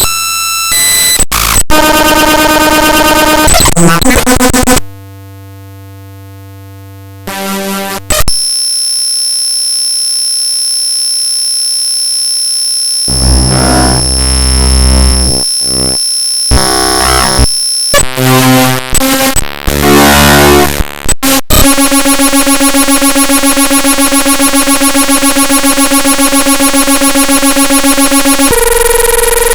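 The raw bytes of the Windows system file xpsp2res.dll played as unsigned 8-bit mono audio at 32 kHz: harsh digital buzzes, noise and steady electronic tones that switch abruptly from one to the next. It is quieter for about two seconds some five seconds in, holds a steady tone with hiss from about eight to eighteen seconds, and settles into a long, even buzz from about twenty-one seconds until shortly before the end.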